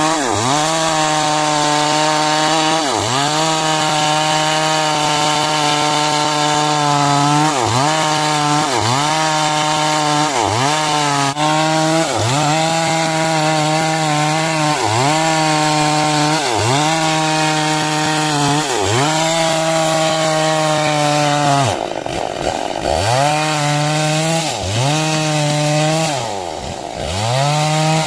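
Chainsaw running at high revs while cutting wood. The engine pitch dips and recovers every second or two as the chain bogs under load. Twice, a little after twenty seconds in and again near the end, it falls lower and quieter before revving back up.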